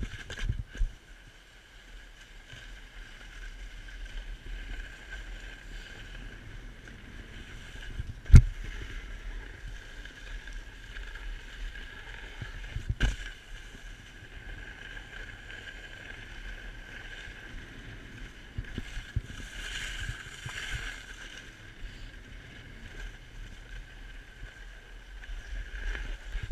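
Snowboard sliding and scraping over groomed snow in a steady hiss, with a sharp knock about eight seconds in and a smaller one around thirteen seconds.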